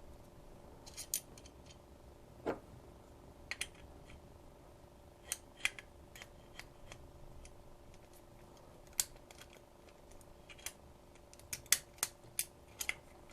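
Scattered small metallic clicks and taps of a homemade pick and an Allen-key tension tool working inside a small two-lever padlock, coming quicker near the end. A faint steady hum runs underneath.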